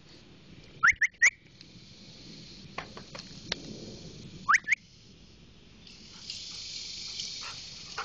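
A person whistling: three quick rising whistles, then two more a few seconds later, likely calling the dog in. A steady high hiss in the background grows louder near the end.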